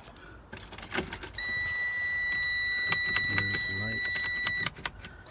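Freightliner Cascadia dashboard warning buzzer sounding one steady high-pitched tone for about three seconds, starting about a second and a half in and cutting off sharply. Scattered clicks come before and after it. It sounds while the dash shows emergency lights and fault codes from an electrical fault.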